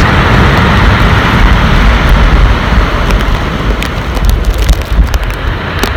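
Strong wind buffeting the microphone with a heavy low rumble, over the steady rush of big storm waves breaking on a pebble beach.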